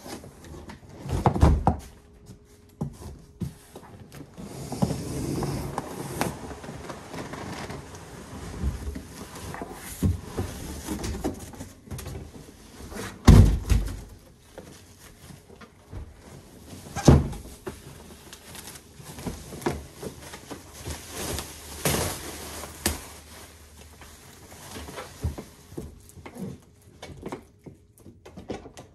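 Handling noises from unpacking a hard-shell suitcase: a cardboard box and plastic wrap rustling and scraping, with a few loud thuds as the case and box are knocked about and set down.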